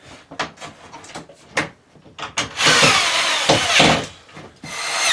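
Power drill driving screws: a few handling knocks, then a loud run of about a second and a half, its whine falling in pitch as the screw draws down, and a second, shorter run near the end.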